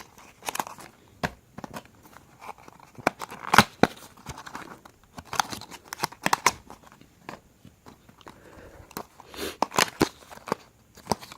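Fidget cube packaging being opened by hand: crinkling and tearing, with many scattered sharp clicks and taps.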